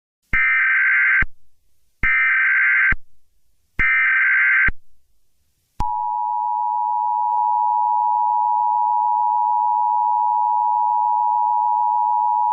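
Emergency Alert System alert tones: three short data bursts of the digital SAME header, each just under a second with short gaps between them, then, about six seconds in, the steady two-tone EAS attention signal.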